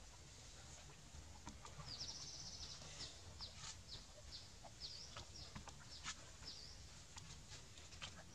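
Faint bird chirping: a run of short, high notes, about two a second, from about two seconds in until near the end, with scattered light clicks.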